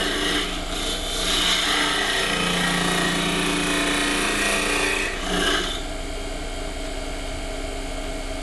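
A turning tool cutting the inside of a spinning olive wood blank on a lathe, a steady scraping cut with shavings flying. About six seconds in the tool comes off the wood and only the lathe's steady running hum remains.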